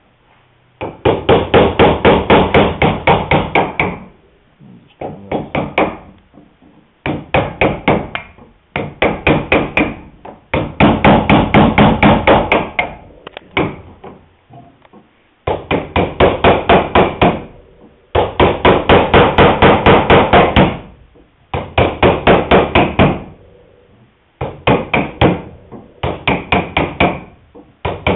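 A wooden mallet tapping a chisel into the wooden rail, trimming its end grain to fit. The taps come in quick runs, several a second, with short pauses between runs.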